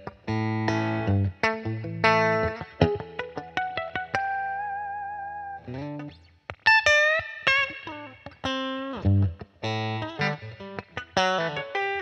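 Solo Fender Telecaster electric guitar playing blues, mixing picked single-note lines and chords. About four seconds in, one note is held with vibrato. Just after it comes a run of string bends that slide up in pitch.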